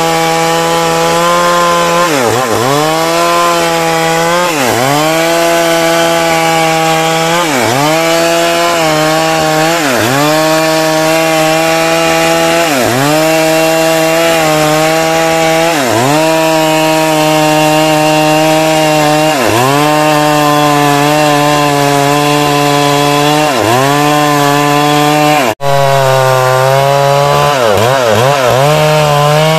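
Stihl MS 382 two-stroke chainsaw running at high revs while cutting teak wood. Its pitch sags briefly and recovers every couple of seconds as the chain bites and loads the engine, with quicker dips near the end. There is a split-second break in the sound a few seconds before the end.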